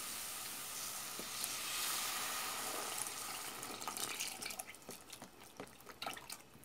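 Milk pouring in a steady stream from a carton into a pot of hot flour-and-margarine roux. The stream thins into scattered drips and small splashes over the last couple of seconds.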